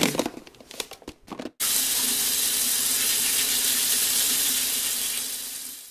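A bathroom tap running steadily into the sink as a loud, even hiss. It starts abruptly about one and a half seconds in and fades out near the end. Before it come a few light clicks and rustles from handling plastic food containers in an insulated lunch bag.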